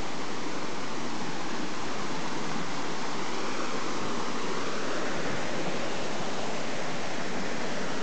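Small woodland waterfall, water rushing steadily over a drop of about ten feet.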